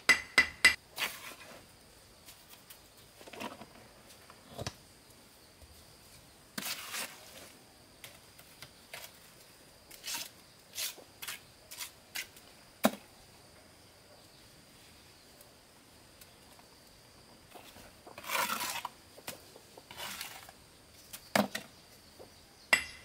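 A steel bricklaying trowel clinking, tapping and scraping against concrete blocks and mortar in scattered, irregular strokes while a block wall is laid, with a ringing metallic clink near the start.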